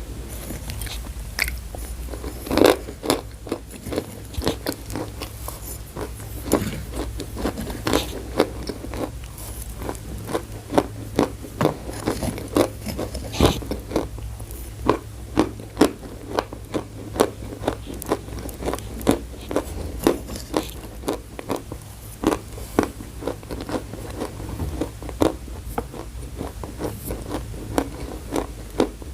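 A person biting and chewing chalk close to the microphone: a run of sharp, dry crunches, irregular but about one or two a second, over a faint steady low hum.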